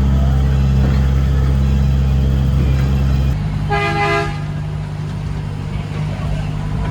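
Ride train running with a steady low engine drone that changes note a little past three seconds in, then one short toot of the train's horn about four seconds in.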